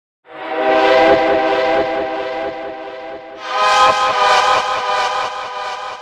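Train horn sound effect from a phone app: a long horn blast begins about a quarter second in, and a second blast about halfway through sounds at a higher pitch, the app's pitch control having been raised. A low rumble runs beneath both blasts.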